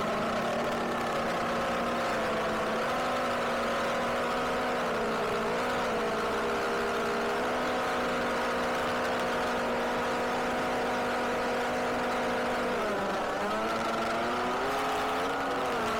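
A car running at a steady cruise, a steady humming tone with overtones that shifts slightly in pitch and dips briefly about thirteen seconds in, then settles again.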